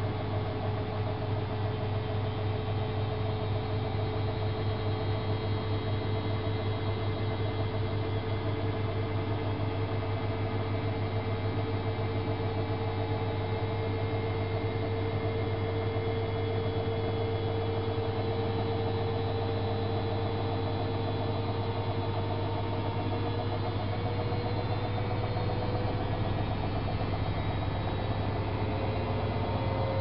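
AEG Öko-Lavamat 8650 front-loading washing machine running mid-cycle: a steady low hum with a motor whine above it that slowly rises in pitch.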